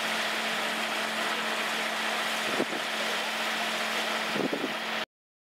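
Dredge crane barge's engine running as a steady low hum under a steady hiss of wind and sea, with two brief bumps; the sound cuts off suddenly about five seconds in.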